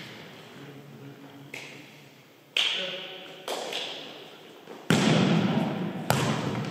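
A volleyball being struck by players' hands and forearms during a rally, about five sharp slaps a second or so apart, each echoing in the gymnasium.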